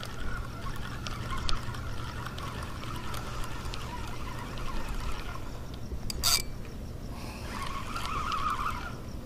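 Spinning reel being cranked to bring in a small hooked snook, a whirring that eases off mid-way and picks up again near the end, with water splashing. A single sharp click a little past the middle.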